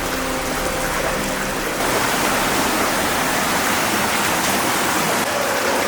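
Stream water rushing steadily, a dense even hiss that grows fuller about two seconds in.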